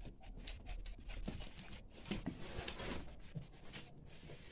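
Quiet, dense light clicking and scratching: a small dog's claws on a hardwood floor and the handling of a cardboard box, with a box cutter slitting its packing tape near the end.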